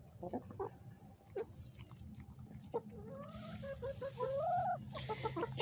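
Chickens feeding close by, with a few faint clicks in the first half. From about halfway a low, wavering clucking call starts and grows louder toward the end.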